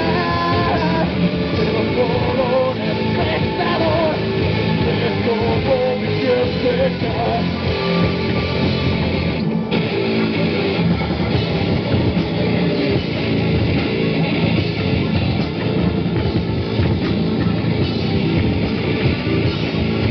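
Heavy rock band playing an instrumental passage with distorted electric guitars, bass and drums. A wavering lead melody rides over the band for the first seven seconds or so.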